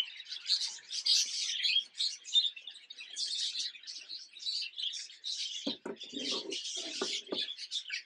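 Budgerigars in a breeding room chirping and chattering continuously, many birds at once. A few knocks and some clatter join in about six seconds in.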